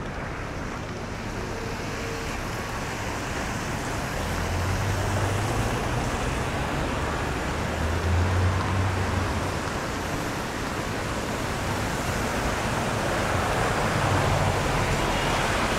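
Traffic on a rain-wet city avenue: a steady hiss of tyres on wet pavement, with the low rumble of passing buses and other vehicles swelling up several times.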